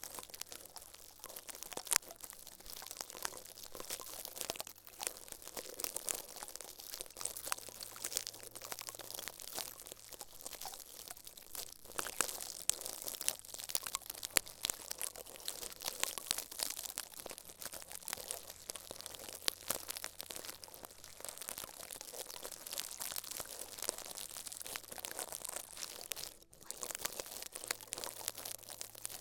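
Close-miked ASMR crinkling and crackling: a dense, continuous run of fine crackles from something being handled and crumpled, with a brief pause near the end.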